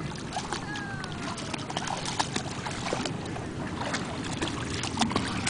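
Lakeshore beach noise: a steady rumble of wind and water, broken by many short splashes and clicks.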